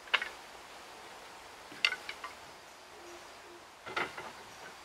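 Wooden folding camp table being assembled: sharp wooden clacks as its parts knock together, one right at the start, another just under two seconds in followed by a couple of smaller knocks, and a short rattling cluster about four seconds in as the slatted roll-up top is laid on the frame.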